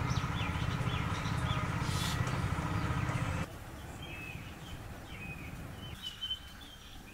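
A motor hums steadily, then cuts off abruptly about three and a half seconds in. Birds chirp on and off throughout and are heard alone after the cut.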